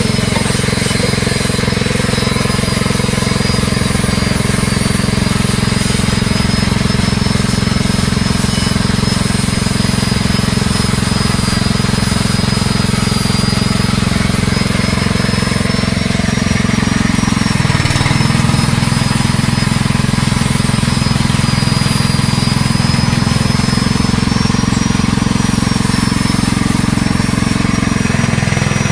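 Mini floating-fish-feed pellet extruder running steadily under load: a constant motor drone with a thin high whine that wavers slightly. A little past halfway the drone dips and settles a little lower.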